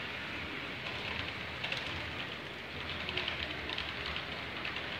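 Model train running on a layout's track, its wheels giving fast, irregular clicking over a steady hiss. The clicking starts about one and a half seconds in.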